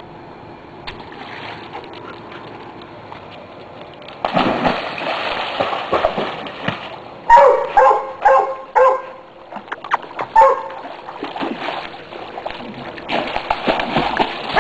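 A Labrador retriever splashing into and swimming through a swimming pool, with heavy splashing and sloshing starting about four seconds in and again near the end. A dog gives several short, sharp yips in a quick run in the middle and once more a little later.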